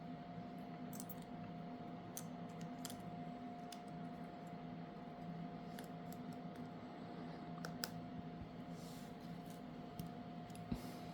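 Faint, scattered small clicks and taps of tools and parts being handled during a smartphone teardown, over a steady electrical hum.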